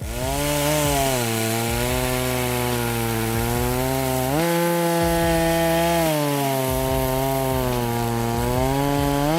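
EFCO MT8200 82 cc two-stroke chainsaw running at high revs while cutting wood. Its engine pitch steps up, sags and rises again as the load on the chain changes.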